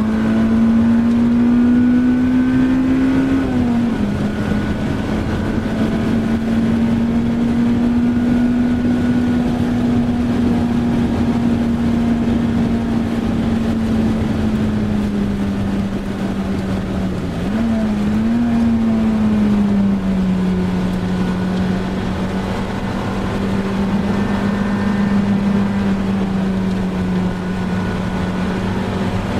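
Honda Civic Type R EP3's 2.0-litre four-cylinder engine at high revs under load, heard inside the cabin: its pitch climbs, drops on an upshift about four seconds in, then holds steady. A little past halfway the pitch wobbles briefly and settles lower as the car slows. Tyres hiss on the wet track throughout.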